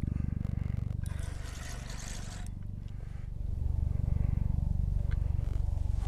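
Wind buffeting the microphone: a low, fluttering rumble that eases off briefly and swells again about three and a half seconds in.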